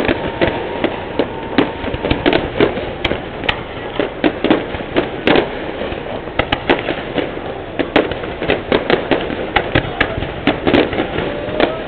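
Fireworks display: a rapid, irregular run of bangs and crackles, two or three a second, over a continuous rumble.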